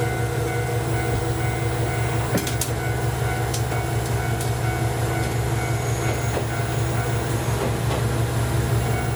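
Train running steadily, a continuous low drone with a few light clicks from the wheels and track between two and four and a half seconds in.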